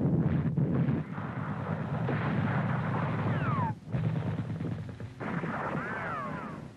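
Battle sound track of gunfire and artillery fire, dense and continuous, with a falling whistle about three and a half seconds in.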